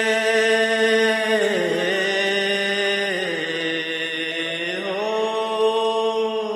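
A male singing voice holding one long drawn-out note without words, dipping in pitch about a second and a half in and again around three seconds, then sliding back up near the end.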